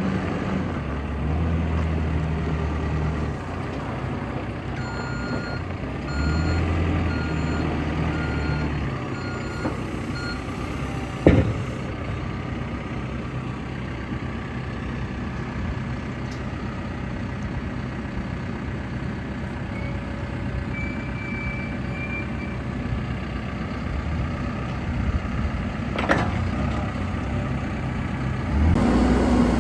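Diesel engine of a 2015 Cat 450F backhoe loader running, its low note swelling twice. Its backup alarm beeps steadily for about five seconds, and there is a sharp click just after.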